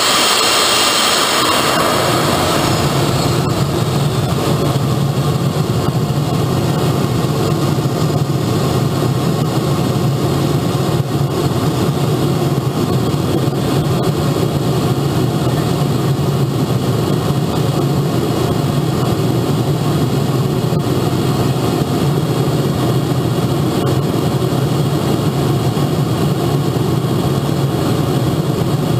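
Model jet's turbine engine running steadily at idle, heard close up from under the fuselage. A high whine in the first two seconds drops away and the sound then holds steady.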